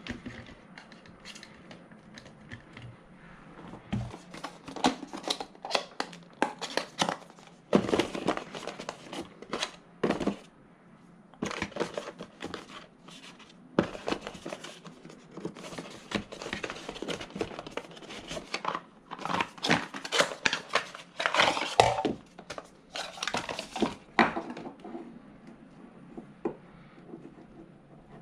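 Packaging crinkling and rustling as it is handled, with many scattered clicks and small knocks; the handling dies down near the end.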